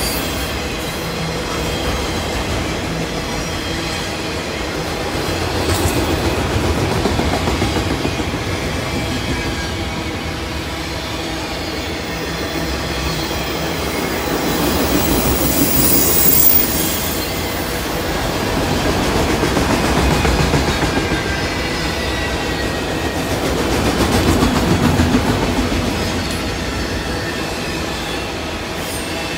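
Freight train of autorack cars rolling past at trackside: steady rumble and clatter of steel wheels on the rails, swelling and easing every few seconds as the cars go by, with a faint high wheel squeal now and then.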